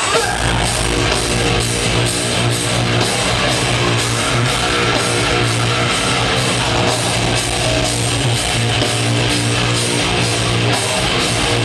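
Metalcore band playing live at full volume: distorted guitars, bass and drums with steady cymbal hits, the full band coming in right at the start.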